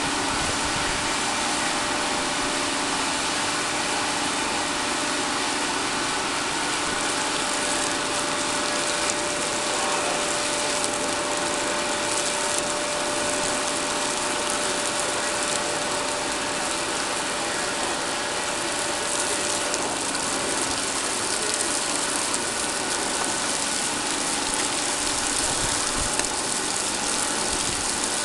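Oil rig machinery running: a steady, dense mechanical noise with a faint hum held through it.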